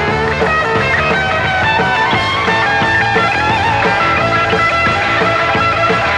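Rock band playing live: electric guitars over bass and drums, loud and unbroken.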